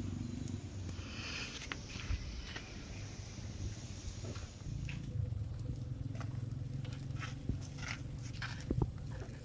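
Wood fire burning under a large wok, with a low steady rumble and scattered, irregular crackles and snaps from the burning firewood.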